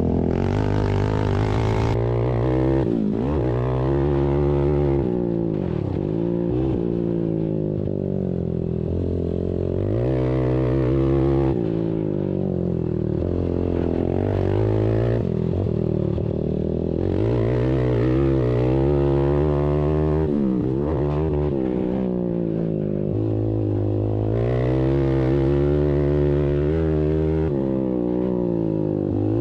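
ATV engines racing, the pitch climbing as they accelerate and then dropping sharply as they back off, again and again.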